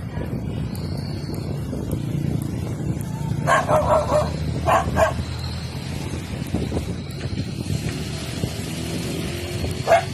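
A dog barking a few short times, about three and a half to five seconds in and once more near the end, over a steady low rumble.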